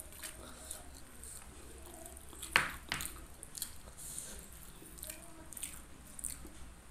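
Close-miked eating sounds: soft, wet clicks and squishes of fingers pulling apart fried chicken and dipping it in sambal, and of closed-mouth chewing, with one sharp smack-like click about two and a half seconds in and a smaller one just after.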